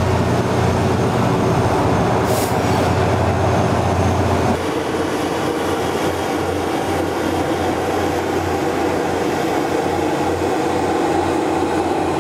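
Rail car mover running on the tracks as it moves the rocket's launch platform: a steady low engine hum with rolling rail noise and a brief hiss about two seconds in. About four and a half seconds in the sound changes abruptly to a steadier rolling rumble.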